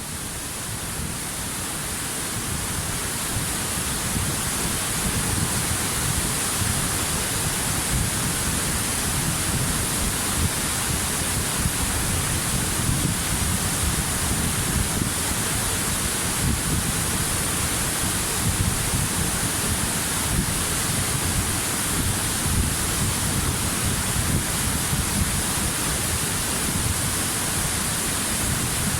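Waterfall: a steady rush of falling water that swells over the first few seconds, then holds even.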